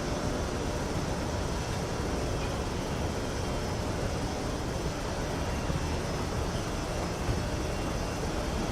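Outdoor escalator running: a steady mechanical rumble and hum from its drive and moving steps, with a faint steady whine.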